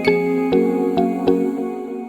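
Gentle instrumental background music: a few struck, bell-like notes that ring on, the last ones sustaining and starting to fade near the end.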